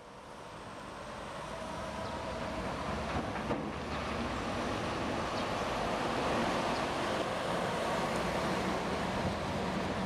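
Steady outdoor din of a large construction site, a dense mechanical noise with faint steady hums in it, fading in over the first couple of seconds.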